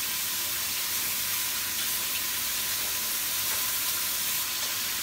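Oxtail pieces sizzling steadily in a little oil in a stainless-steel frying pan as they brown.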